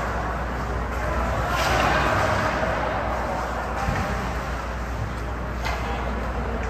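Ice hockey rink ambience during play: a steady low hum under distant voices and skating noise, with a few sharp knocks from sticks or puck.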